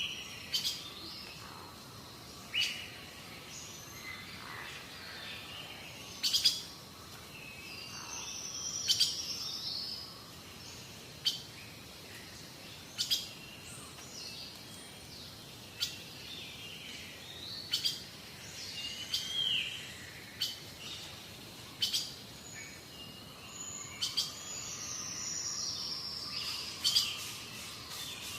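Birds calling: short sharp chirps every second or two, with a few longer whistled calls that glide in pitch, over a faint steady outdoor hiss.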